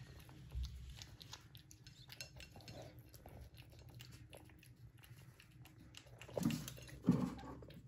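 Cats at dry cat food: small crunches of kibble being chewed and light clinks of kibble against a plastic bowl, with two louder bumps near the end.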